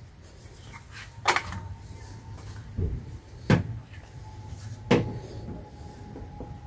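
Four short knocks spaced a second or so apart as a rubber serpentine belt is handled and fed down against the engine and its pulleys, over a low steady background hum.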